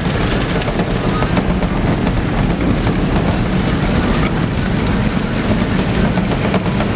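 Toyota off-road vehicle driving over desert sand, its engine and tyre noise heard from inside the cab. Frequent rattles and knocks run through the steady drone.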